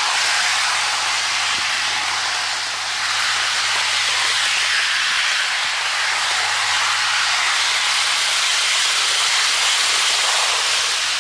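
HO-scale Bachmann Spectrum Acela Express model train running with its DCC sound decoder on: a steady, even hiss with a faint low hum underneath.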